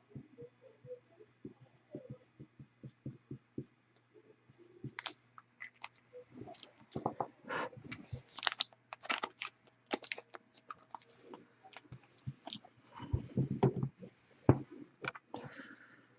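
Trading cards and plastic card holders being handled: scattered small clicks, taps and crinkles, busier in the second half.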